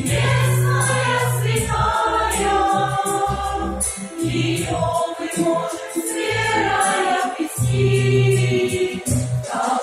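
Music: a choir singing a song with instrumental backing and a steady bass line.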